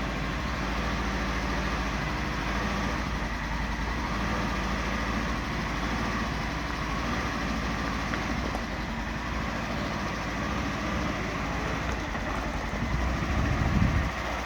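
A vehicle engine idling steadily with a low rumble, swelling briefly near the end.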